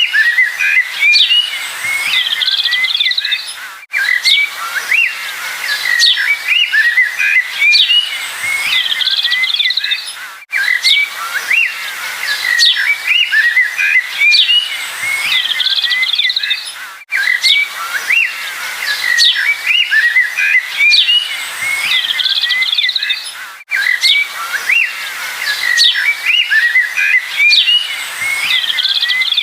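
Songbirds chirping and tweeting in a busy chorus of short, quick notes. The same few seconds of recording repeat about every six and a half seconds, each loop marked by a brief dropout.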